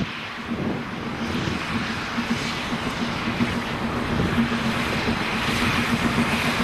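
Steam locomotive working hard with a passenger train as it approaches: a steady rumble of exhaust and running gear that grows louder.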